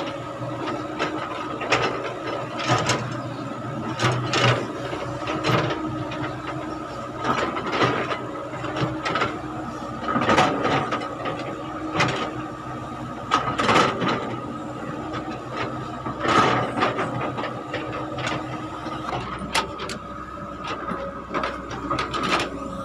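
Caterpillar tracked excavator working: the engine runs steadily with a constant whine, while the bucket digging rocky soil makes repeated irregular clanks and scrapes, roughly one or two a second.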